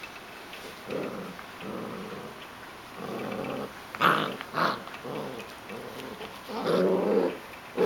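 Puppies play-growling as they wrestle: a string of short growls starting about a second in, two sharp high yips about four seconds in, and the loudest growling near the end.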